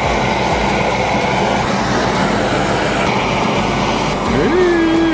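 A portable gas camping stove burning steadily under a pot, a loud, even rushing noise.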